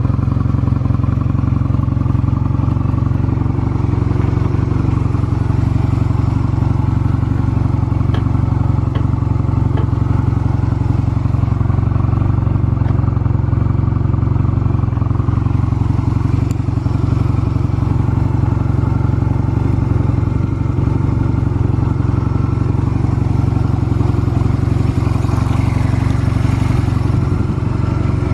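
Honda Rebel 250 (MC13) air-cooled parallel-twin engine running steadily, with no abnormal engine noise.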